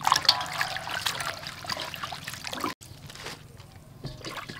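Water splashing and trickling as hands wash bok choy leaves in a steel basin; it cuts off suddenly about two and a half seconds in and continues more faintly.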